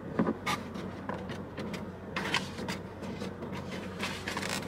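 Fork scraping and tapping in takeout food containers as rice is spooned from one container into another, with short clicks and scrapes scattered through.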